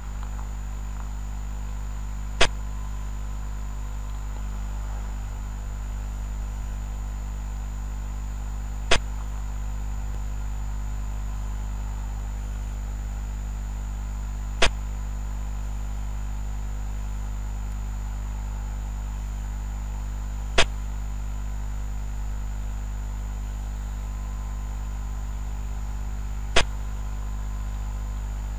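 Sharp click of a xiangqi piece being moved on a computer board replay, five times about six seconds apart, over a steady low mains-type hum and a faint high whine.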